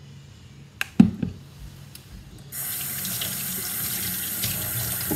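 A couple of knocks about a second in as a bowl is set down on the counter. From about two and a half seconds in, a kitchen tap runs steadily into the sink.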